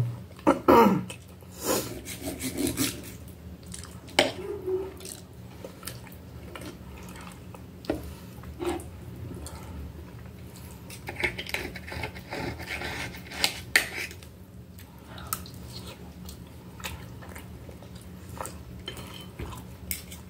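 Metal fork and knife clinking and scraping against a glass plate while food is cut and picked up, in irregular sharp clicks with softer scrapes between.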